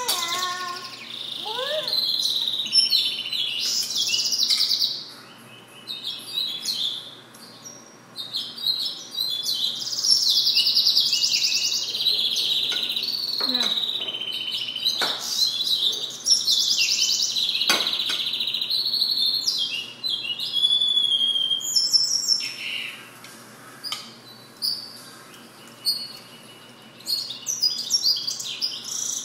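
Caged goldfinch mule, a goldfinch × canary hybrid, singing in long runs of rapid, high twittering. The song breaks off twice, once about a fifth of the way in and again near the end, leaving short single chirps.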